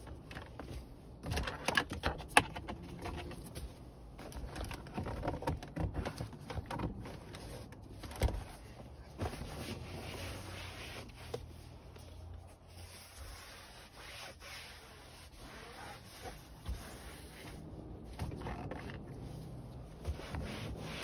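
Cloth rubbing and wiping over leather car seats, irregular strokes with scattered clicks and knocks of handling.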